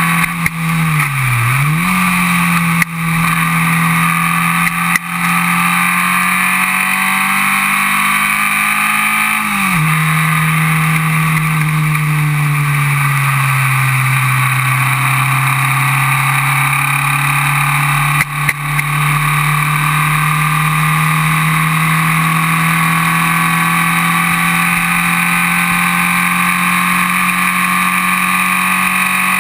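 Onboard sound of a Formula Vee race car's air-cooled Volkswagen 1200 flat-four engine under racing load. The engine note dips and recovers about a second in, climbs steadily until a sharp drop about ten seconds in, like an upshift, sags through a corner, then rises again and holds steady down the straight.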